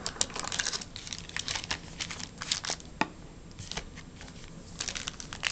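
Foil-wrapped trading card packs crinkling and rustling as they are pulled out of a cardboard hobby box and stacked on a table, with scattered sharp crackles and taps. It goes quieter for about a second and a half past the middle.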